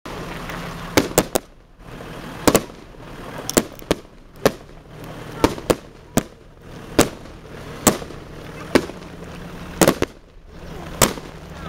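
Aerial fireworks bursting: about fifteen sharp bangs at irregular intervals, several coming in quick pairs or triples.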